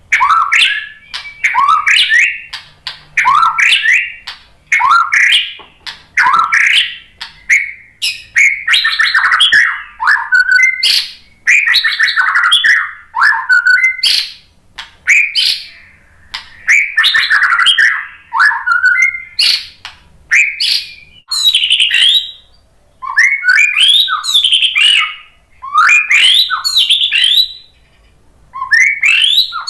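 White-rumped shama (murai batu) singing a loud, fast run of varied whistled phrases, each about a second long with short gaps between, broken by sharp clicking notes.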